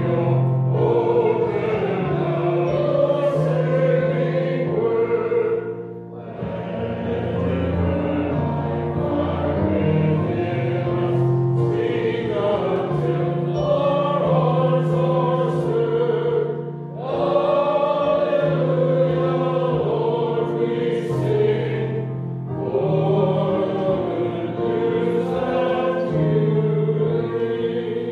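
Voices singing a slow sung Gospel acclamation over sustained electronic keyboard accompaniment. The singing comes in four phrases, each with a short break about 6, 17 and 22 seconds in.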